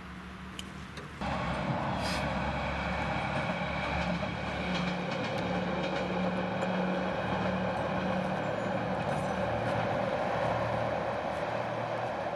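Steady vehicle rumble with a low humming drone, starting abruptly about a second in and carrying on without a break.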